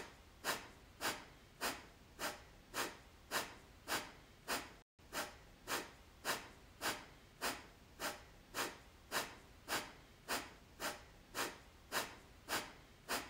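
Kapalabhati breathing: short, forceful exhalations pushed out through the nose, each a sharp puff of air, repeating steadily a little under twice a second.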